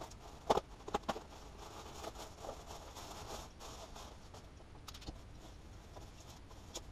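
Foam packing sheet and a plastic bag rustling and crinkling as new fairing parts are unwrapped, with a few sharp clicks in the first second or so.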